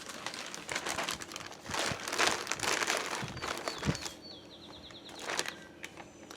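Plastic or paper packaging crinkling and rustling as a gift package is opened and unwrapped, with irregular crackles over the first four seconds. A quick run of high chirps follows about four seconds in.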